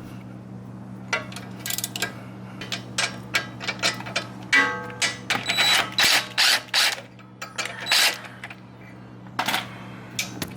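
Ratchet wrench clicking in quick, irregular runs of strokes as the bolts holding a front strut to the steering knuckle are loosened. There is a brief squeak a little before the middle.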